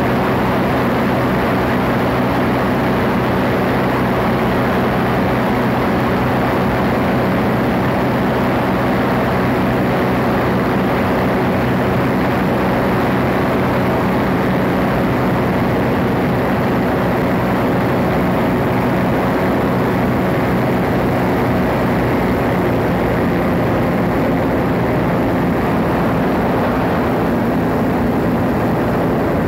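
Open ultralight aircraft's engine and propeller running steadily in cruise flight, an even pitch held throughout, with rushing air mixed in.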